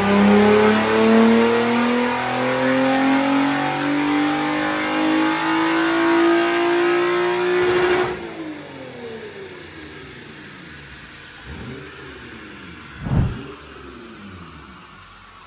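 Toyota 2GR-FE 3.5-litre V6 at wide-open throttle on a chassis dyno, its exhaust open at the unbolted Y-pipe, rising steadily in pitch to redline. About eight seconds in it comes off the throttle and winds down with falling pitch, and a short thump follows near the end.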